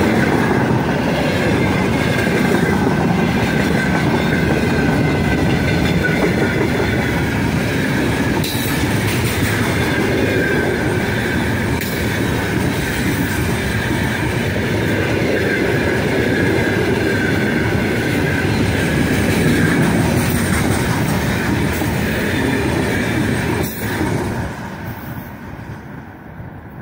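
Freight train wagons rolling past close by: a steady rumble and clatter of steel wheels on the rails, with a high whine from the wheels. The sound drops away quickly near the end as the last wagon passes and recedes.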